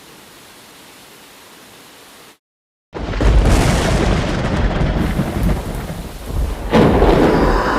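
Thunderstorm sound effect: a quiet hiss of rain, then a half-second dead drop-out, then a loud, deep thunder rumble that swells again near the end.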